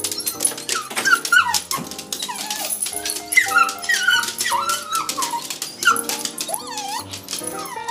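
Cocker spaniel 'singing': high whining yowls that rise and fall in pitch, one after another, over music with held notes.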